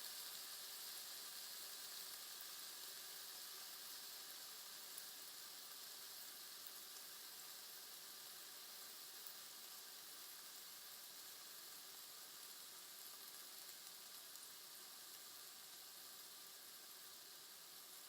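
Thinly cut beef sizzling faintly in a hot pan, a steady high hiss that slowly fades.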